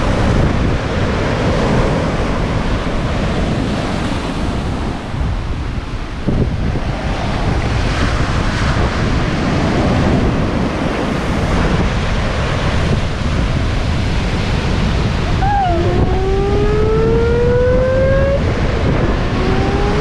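Wind buffeting the microphone over surf breaking on the beach, with a steady rush of noise. Near the end a rising whine with overtones climbs steadily for a few seconds, stops, and begins climbing again.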